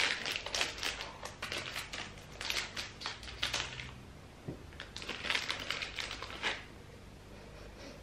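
Clear plastic bag of dog biscuits crinkling as it is opened and handled, in three spells of crackly rustling, quieter near the end.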